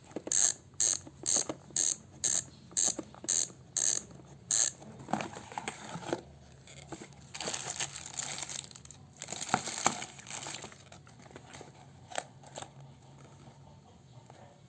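Ragusa XM700 mountain-bike freehub ratcheting: the pawls click in sharp, even bursts about two a second for the first few seconds, then in looser, softer runs that thin out towards the end.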